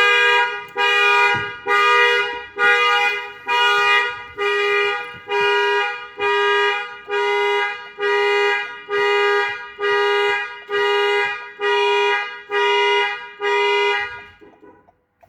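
Toyota's two-tone car horn pulsed by a Patrolline car alarm, honking in even blasts a little under one a second, about sixteen times, then stopping near the end: the alarm has been triggered.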